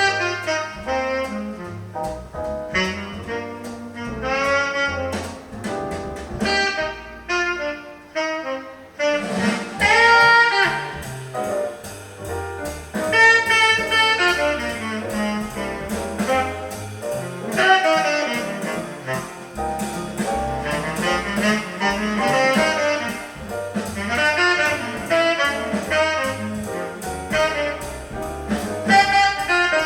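Jazz with a saxophone lead over a stepping bass line, played back from a vinyl record through Raidho 1.6X loudspeakers; the band thins out briefly about eight seconds in, then comes back in full.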